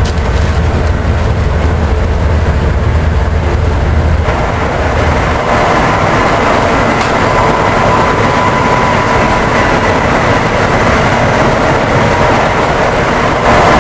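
Passenger train running at speed behind a pushing AEM-7AC electric locomotive, with a steady rumble and rush of wheels on rail. About four seconds in, a deep hum drops away and a brighter rushing noise with a thin steady whine takes over.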